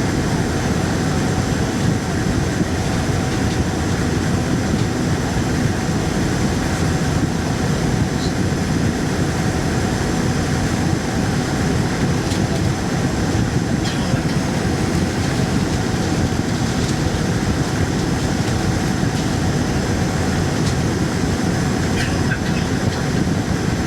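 Steady cabin noise aboard a Boeing 787 on the ground: a constant rumble with engine hum and a few faint steady tones, as the aircraft taxis.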